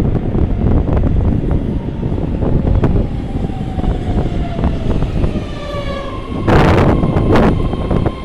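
Legacy-fleet BART train running at the platform: a steady rumble of wheels on rail, with a propulsion whine that falls in pitch from about three seconds in, as the train slows. About six and a half seconds in, a loud burst of noise cuts in over it.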